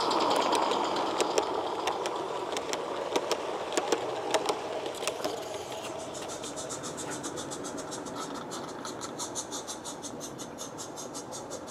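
A 16 mm live-steam garden train of ballast hopper wagons rolling past, the metal wheels clicking irregularly over the rail joints and fading as it goes. Then comes a quick, even beat from a small Roundhouse Karen live-steam locomotive approaching.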